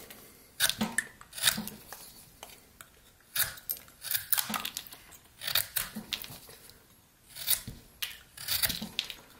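Rough Rider pocket knife slicing shavings off a pine blank: a series of short cutting strokes, irregularly spaced in small clusters with brief pauses between.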